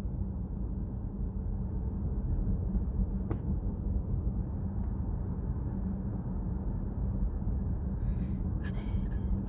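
Steady low rumble inside the cabin of a Chevrolet Trax crossover driving slowly, with a single sharp click about a third of the way in.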